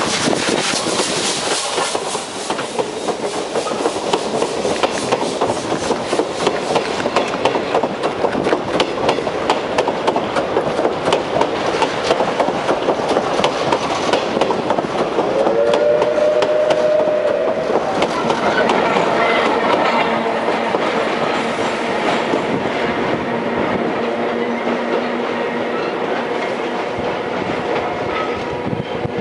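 Steam-hauled train passing close by, its wheels clattering rhythmically over the rail joints. About halfway through there is a brief steady tone.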